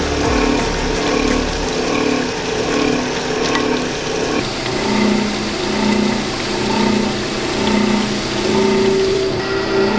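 Belt-driven machine running with a steady hum that swells about every three-quarters of a second; its pitch drops about four seconds in.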